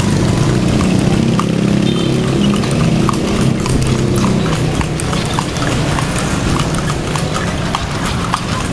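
Shod horse hooves clip-clopping on a paved street as the horse pulls a kalesa (horse-drawn carriage), heard from aboard, with a steady low rumble beneath that is strongest in the first half.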